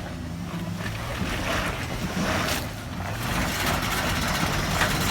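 Jeep Grand Cherokee's engine running under load and revving as it climbs a muddy rut, with wind buffeting the microphone. It gets louder about three seconds in.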